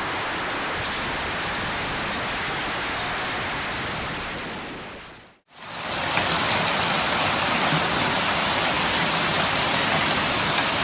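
Heavy storm downpour of rain and hail with wind, a steady dense hiss. It fades out about five seconds in and a second, louder downpour recording cuts in.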